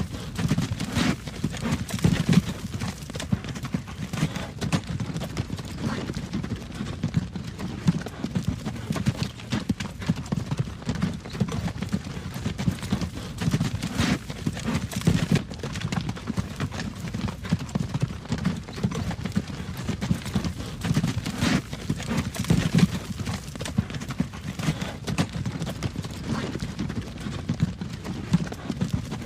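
Horse-drawn wagon travelling along a road: a steady clip-clop of hooves over the low, continuous rumble of the wagon's wheels.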